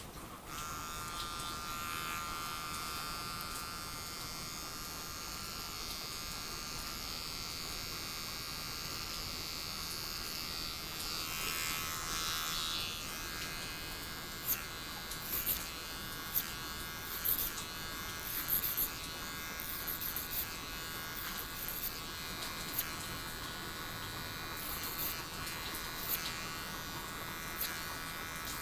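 Electric hair clippers buzzing steadily, starting about half a second in. From about halfway on, brief crisp ticks come over the buzz.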